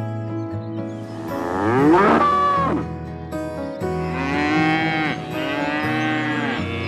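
Cow-like bovine lowing: a call rising in pitch about two seconds in, then longer arching calls from about four seconds in, over steady background music.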